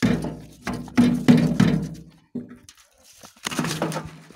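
Rohu fish knocking against a steel wheelbarrow tray as they are handled, each knock leaving the metal ringing with a low hum. Several knocks come in the first two seconds, and another longer one about three and a half seconds in.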